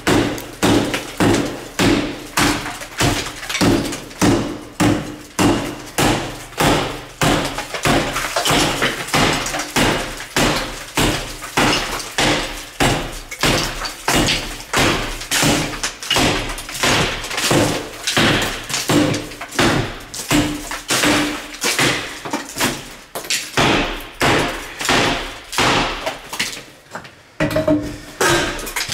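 Hammer blows on a small steel wall safe set in a house wall, struck over and over at about one and a half blows a second, each hit with a short metallic ring. The blows stop briefly near the end, then start again.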